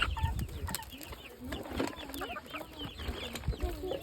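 Young chickens peeping and clucking: many short, high calls overlapping, with some lower clucks among them.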